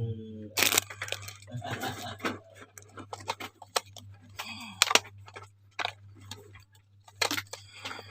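Packaging being handled and pulled open: irregular crackling, crinkling and sharp clicks, with a low steady hum underneath.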